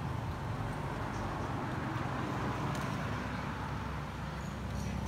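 A motor vehicle engine running with a steady low hum under general outdoor background noise.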